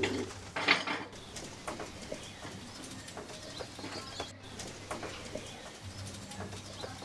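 Domestic pigeons cooing, with a brief loud noise under a second in and a steady low hum underneath.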